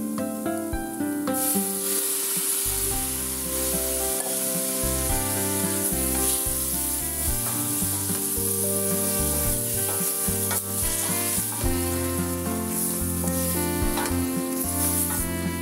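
Shrimp and chicken pieces sizzling as they fry in a stainless steel pan, stirred with a wooden spatula; the sizzle grows louder about a second in. Background music with sustained notes plays along, its bass line coming in a couple of seconds in.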